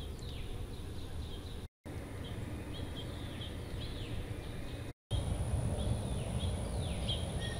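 Outdoor ambience of small birds chirping over and over, short notes and quick downward-sliding calls, over a low rumble of wind and background noise with a thin steady high whine. The sound cuts out briefly twice, and the rumble is louder after the second break.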